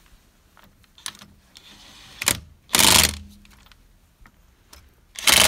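Cordless impact gun running wheel nuts onto a van's front wheel in two short bursts of rattling hammering, about two and a half seconds apart: the nuts being snugged down a little at a time.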